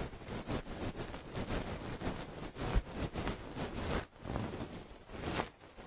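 Close, irregular rustling and scratching of something furry brushed in and around the ear of a binaural microphone: ASMR ear cleaning with a dog's fluffy tail.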